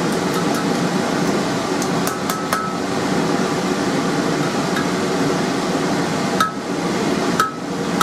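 Ball-peen hammer striking steel on an anvil: a few separate blows, three in quick succession about two seconds in and two more near the end, several with a short bright ring. A steady droning background runs beneath the blows.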